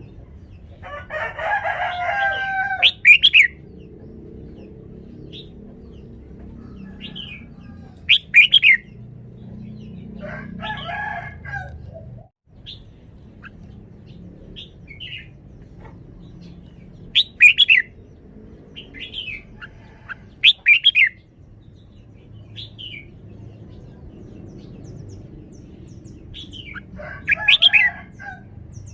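Red-whiskered bulbul singing short, loud whistled phrases every few seconds, with quieter single notes in between.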